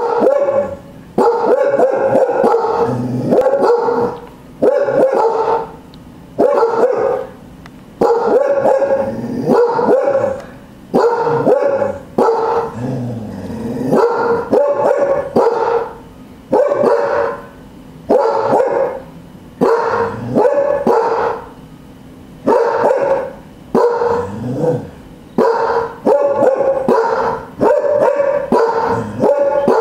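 Cardigan Welsh Corgi guard dogs barking over and over, in runs of sharp barks about a second apart with short breaks between runs.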